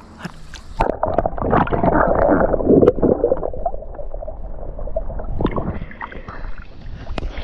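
Water splashing and sloshing close to the microphone, loudest for a couple of seconds starting about a second in, then settling to a softer rough wash.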